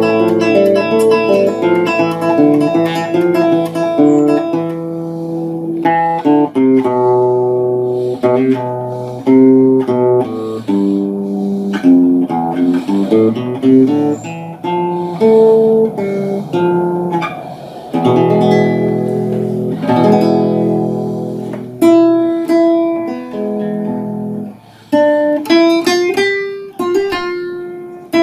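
Background music: a guitar playing a run of plucked notes and chords.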